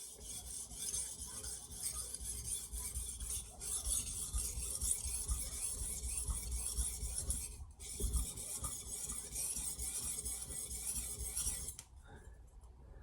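Knife blade being stroked across the 1200-grit side of a Sharpal diamond sharpening plate: a steady dry scraping rasp of steel on diamond. It breaks off briefly about two-thirds of the way through, then carries on and stops about a second before the end.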